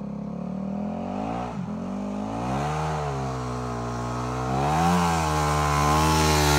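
Yamaha YZ250F four-stroke single-cylinder dirt bike engine running under load while towing a snowboarder. Its pitch drops sharply about a second and a half in, then rises and falls again with the throttle, and it grows louder as the bike comes closer.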